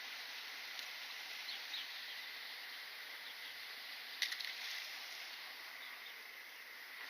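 Steady outdoor insect drone, with a sharp click about four seconds in.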